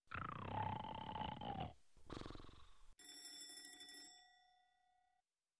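Two long snores from a sleeping person, the first falling in pitch. About three seconds in, a bell-like ring with several steady tones sounds suddenly and fades out over about two seconds.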